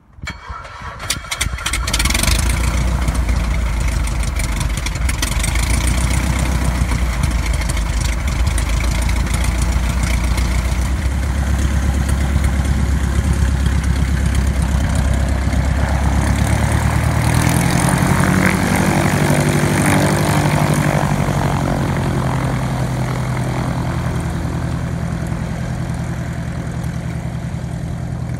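Small single-engine propeller aircraft's piston engine cranked on the starter, catching after about two seconds and settling into a loud, steady idle. In the second half the engine rises in pitch as the throttle opens and the aeroplane taxis off, growing slightly fainter near the end.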